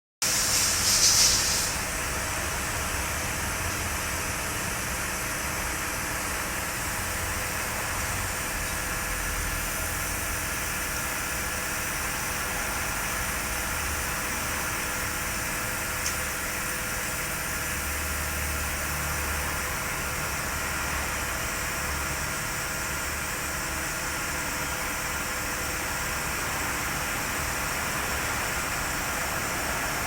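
Lexus 470's 4.7-litre V8 engine running steadily, heard mostly as a constant hiss with a faint steady whine. A louder, hissier surge comes about a second in, and a single click about halfway through.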